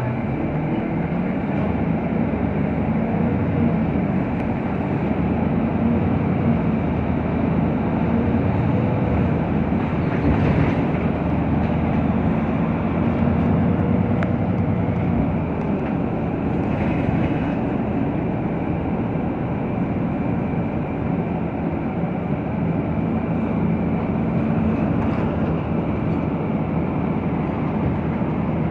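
Cabin noise aboard a VDL Citea LLE city bus under way: its natural-gas Cummins ISB6.7 engine running with a steady low hum under road and tyre noise.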